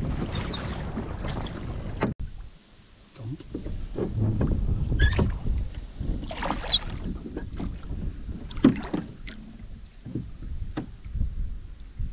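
Oars of a small rowboat pulling and dipping through the water in uneven strokes, with splashes and drips, over wind rumble on the microphone. It drops briefly quiet about two seconds in.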